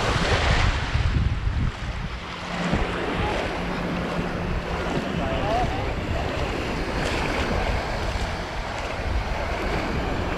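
Ocean surf washing and breaking around the wader, with wind rumbling on the microphone.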